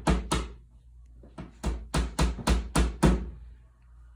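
Hammer tapping a nail through a picture hanger into the wall. There are two strikes, a pause of about a second, then a quick run of about six strikes, roughly three or four a second.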